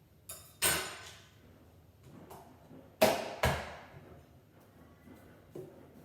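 Kitchen things being put away: two pairs of sharp knocks and clatters, the first just under a second in and the second about three seconds in, each ringing briefly.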